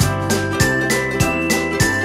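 Background music with a steady beat and a bright, bell-like tinkling melody.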